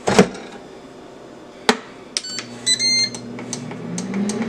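Ninja air fryer being started: a thump as the basket is pushed home, a click, then short control-panel beeps as the time is set. Near the end its fan motor starts, a hum rising in pitch as it spins up.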